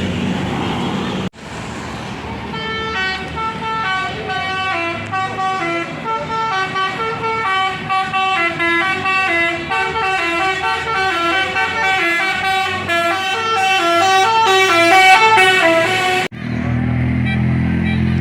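A bus's basuri (telolet) multi-tone horn playing a long tune of quick stepped notes, growing louder toward the end and stopping abruptly. Bus engine and traffic noise are heard before and after it, broken by sharp edits about a second in and near the end.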